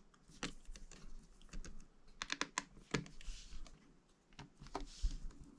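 Scattered light clicks and taps of small tools and parts being handled against a laptop's open aluminium chassis, some single, some in quick little clusters.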